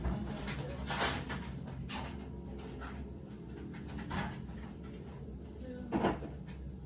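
Kitchen handling sounds: a handful of short knocks and clunks, like cupboard or refrigerator doors and containers being moved, over a steady low hum. The loudest knock comes near the end.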